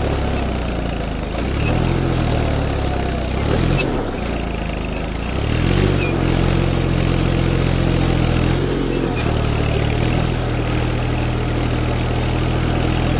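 Tractor engine running steadily, revving up about a second and a half in and again near six seconds, with brief dips around four and nine seconds in.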